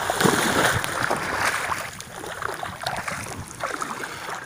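Shallow seawater splashing and sloshing as someone wades through it, louder for the first two seconds, then fainter with scattered small splashes.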